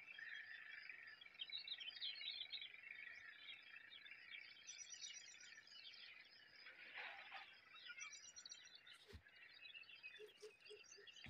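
Faint chorus of many small birds chirping busily, with a single sharp click about nine seconds in.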